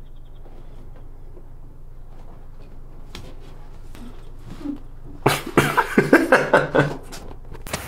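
Low steady room hum, then a little over five seconds in, a person's voice in a quick run of about eight short bursts lasting under two seconds.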